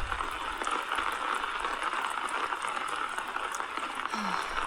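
Steady heavy rain falling, an even hiss with no break.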